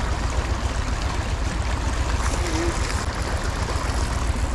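Steady rush of flowing stream water, even and unbroken, with a heavy low rumble underneath.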